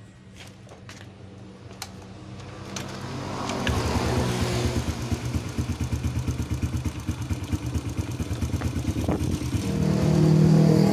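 Honda Revo single-cylinder four-stroke engine starting about three and a half seconds in, then running with a steady rapid beat that grows a little louder near the end. It is the first start after a new cam chain, and the cam chain area runs smooth from the start because the automatic tensioner was pre-filled with oil.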